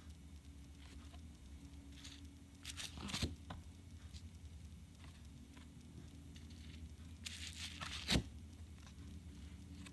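Large Pokémon trading cards being handled over bubble wrap: faint rustling and crinkling. There are two louder scraping bursts, each ending in a sharp tap, about three seconds in and again about eight seconds in.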